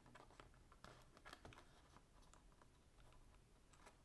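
Near silence with a few faint clicks and taps as fingers press the new battery's connector onto its socket on a MacBook Air's logic board.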